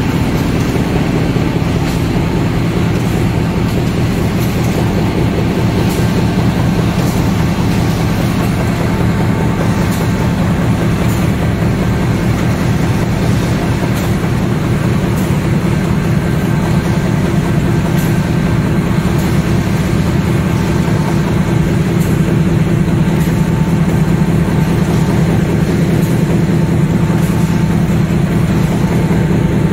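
Steady running noise of a flexo folder gluer box-making line and its conveyors: a dense rapid clatter over a low hum, with faint light ticks about once a second.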